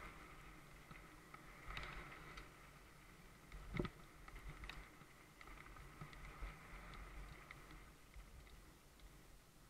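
Faint rumble and small rattles of a mountain bike rolling down a dirt trail, with one sharper knock from the bike about four seconds in.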